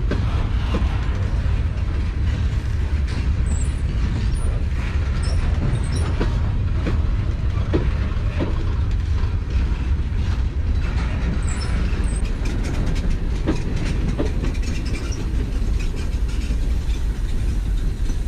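Norfolk Southern freight train's cars rolling past, slowing: a steady low rumble with scattered clicks and knocks of wheels over the rail joints.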